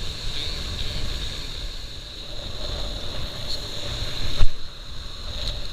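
Strong wind buffeting the microphone in a steady low rumble, with a sharp knock about four and a half seconds in.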